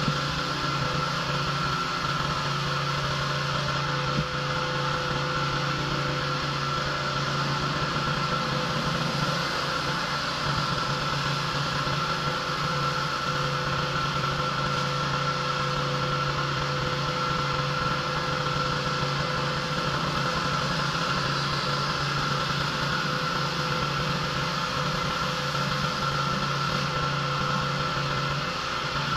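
Pressure washer engine running steadily, with an even hiss of water spray over it.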